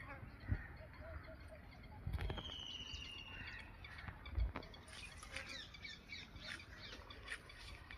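Several birds chirping and calling, including a brief trill about two seconds in, with a few low thumps.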